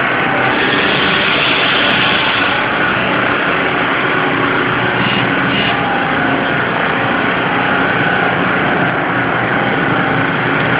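Steady, loud machinery hum and whir with several held tones, unchanging throughout; the hiss grows briefly stronger about half a second to two and a half seconds in.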